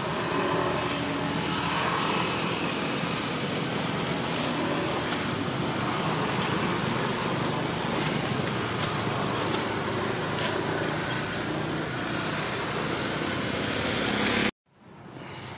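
Steady rushing background noise with a few faint clicks, cutting off abruptly near the end.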